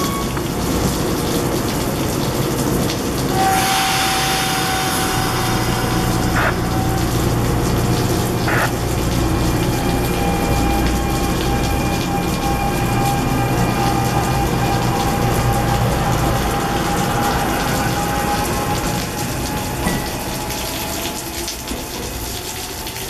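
New Jersey Transit electric commuter train pulling out of the station: a low rumble and a steady whine that rises slightly in pitch as it gets moving, with a couple of sharp clicks along the way. All of it sits over the steady hiss of rain, and the train fades as it pulls away near the end.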